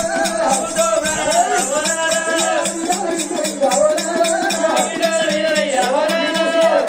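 Oggu Katha folk music: hand-held drums keep a fast, even beat while a voice sings a long, wavering melodic line over them.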